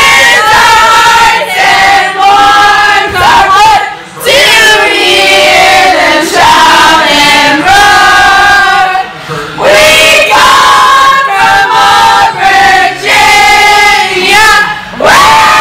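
A small group of young men and women singing loudly together at close range, drawn-out held notes in phrases with short breaks between lines.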